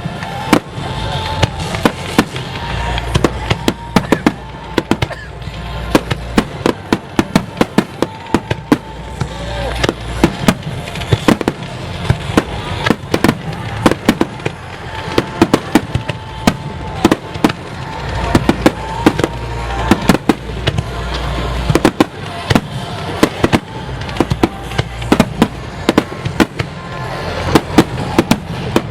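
Fireworks finale barrage: aerial shells bursting in quick succession, several sharp bangs a second over a continuous low booming rumble.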